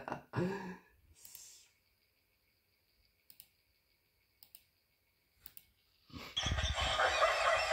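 A few faint single clicks about a second apart. About six seconds in, the loud, harsh, noisy audio of a played meme video clip starts suddenly.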